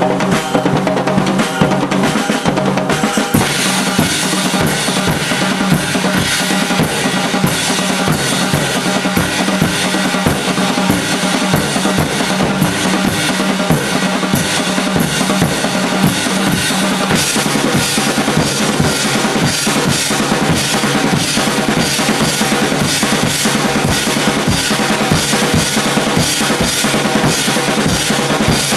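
Two drum kits and hand percussion playing a fast, busy ensemble part, with dense bass drum, snare and rimshot hits over pitched backing. A held low note beneath the drums drops out about 17 seconds in.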